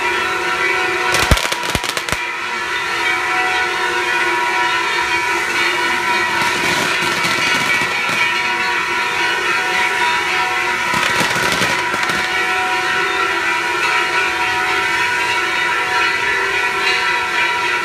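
Festival fireworks fountains showering sparks with a loud, steady hissing roar that carries whistle-like tones, with a cluster of sharp cracks about a second in and bursts of denser crackling a little later.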